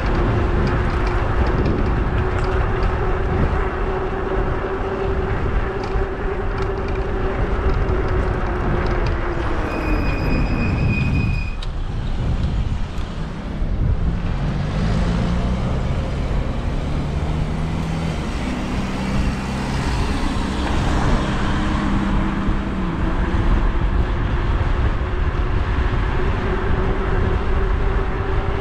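E-bike electric motor whining at a steady pitch under loud wind and tyre noise. About ten seconds in the whine drops away as the bike slows, with a brief high squeal just before it. It builds back up in steps and returns to its steady pitch over the last few seconds.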